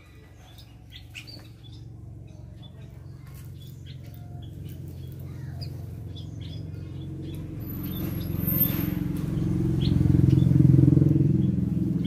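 Scattered short chirps from small aviary birds, while a low engine rumble from a passing vehicle builds over several seconds, peaks about ten seconds in, and then begins to fade.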